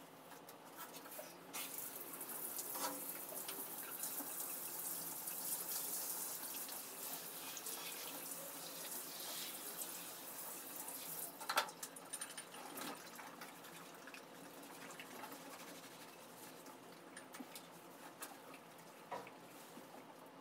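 Handheld shower spraying water onto dogs being bathed, a steady hiss that starts about a second and a half in and is shut off with a sharp click about halfway through. Afterwards there is only faint handling and dripping.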